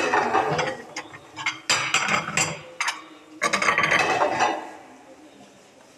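Plates and dishes clattering and clinking as they are washed and stacked at a sink, in three bursts, dying down near the end.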